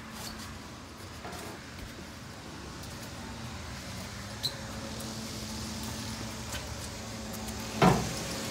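Faint handling noise and footsteps of two movers carrying a clothes dryer in forearm lifting straps, over a steady low hum, with a sharp knock near the end.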